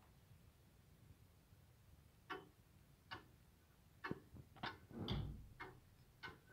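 Antique Dutch stoelklok (wall chair clock) ticking faintly, its escapement giving a series of light clicks from about two seconds in, with a soft thump just past the middle.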